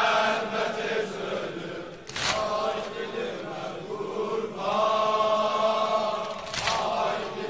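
Mourners chanting the refrain of a Shia noha lament in unison, in long held notes. Two sharp hits fall about four and a half seconds apart.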